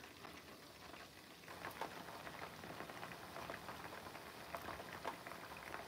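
Chicken wings deep-frying in a pan of hot oil: a faint, steady bubbling crackle made of many small scattered pops.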